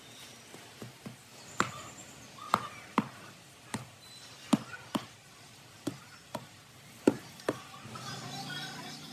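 A run of sharp knocks, about a dozen, often in quick pairs roughly once a second, some ringing briefly, with a hissing noise rising near the end.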